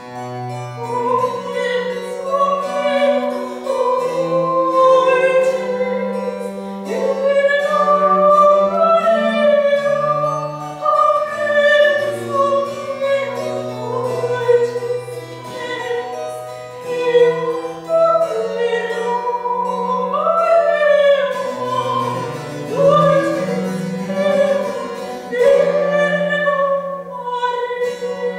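Slow minor-key Baroque chamber music from cello and harpsichord, with long held bass notes under a wavering melody. A soprano voice joins near the end.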